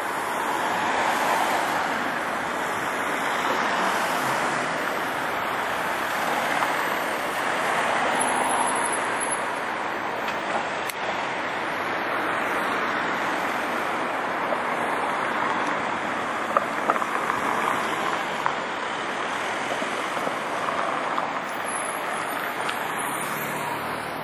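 Steady street traffic noise: cars passing on a city avenue, swelling and easing as vehicles go by.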